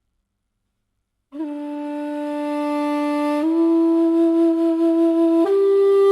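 After about a second of silence, a Chinese bamboo flute comes in on a long, held low note, then rises by small steps to two more held notes, each lasting about two seconds.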